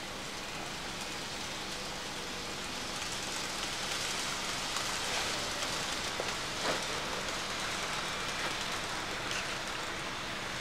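N gauge model of a 103 series electric train running on the layout's track: a steady hiss of motor and wheels that grows slightly louder about three seconds in, with a few light clicks around the middle.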